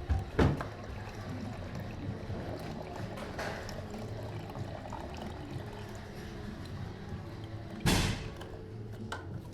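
Engine coolant draining out of a motorcycle's cooling system into a container as a steady trickle and pour. Two sharp knocks, about half a second in and near the end, are the loudest sounds.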